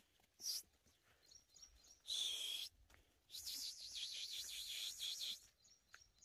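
Faint birdsong and chirping, heard in three short spells with silent gaps between them.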